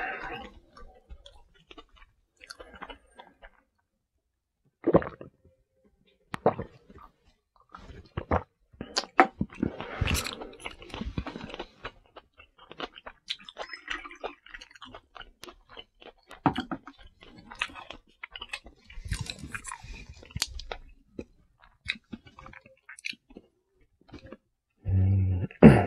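Close-miked eating sounds: chewing and biting with scattered clicks of chopsticks against bowls, and soju being poured from a bottle into a small glass near the middle. A brief hum of voice comes near the end.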